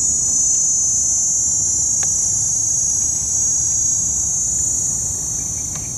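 A loud, steady, high-pitched drone of insects singing, over a low rumble.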